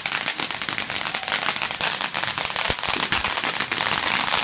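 Ground fireworks going off: a loud, dense, rapid stream of sharp crackles and pops.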